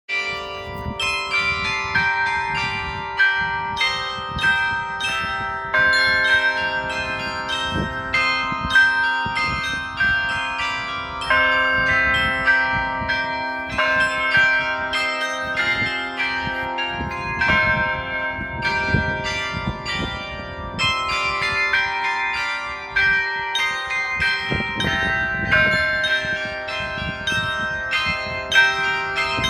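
Several church bells ringing together in a continuous peal: strikes at different pitches overlap, a few per second, each leaving a long ringing tail.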